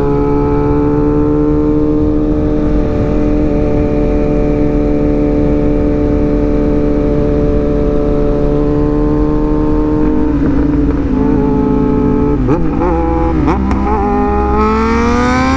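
Sport motorcycle engine under way at a steady cruise, its pitch slowly falling for about ten seconds, with a few short jumps in revs after that and a rising rev as it accelerates near the end.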